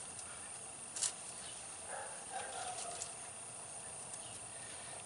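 Quiet outdoor background with insects chirping steadily, and a faint click about a second in as the old snap ring is handled at the S-cam shaft end by the slack adjuster.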